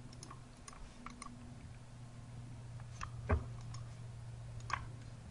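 Scattered clicks of a computer mouse and keyboard, the two loudest about three and a quarter seconds in and near the end, over a faint steady low hum.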